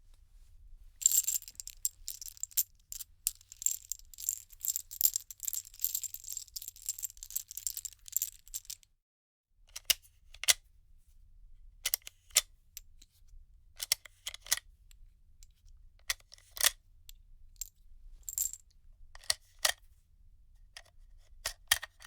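Loose bullets being handled, metal rounds clinking together: a busy, continuous jingle for about eight seconds, then a pause and single clinks every second or two.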